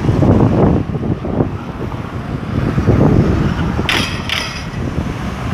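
Street traffic: cars driving past at a road junction, with wind buffeting the microphone. Two short, sharp high-pitched sounds come close together about four seconds in.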